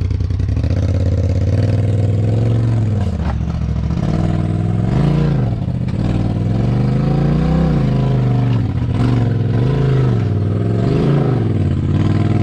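Polaris RZR XP 4 Turbo side-by-side's engine revving up and falling back in repeated throttle bursts, a rise and fall every second or two, as it crawls over rock ledges on big tires. A few short knocks come through from the rocks.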